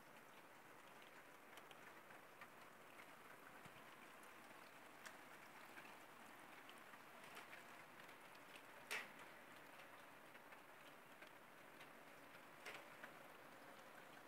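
Faint, steady patter of wet falling snow, with many small ticks of drops landing and a louder tick about nine seconds in.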